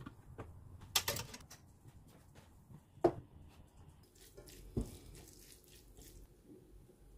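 Chopsticks stirring and tossing jjajang ramen noodles in a metal pan: soft wet stirring with scattered small clicks, and three louder knocks against the pan spread over the stretch.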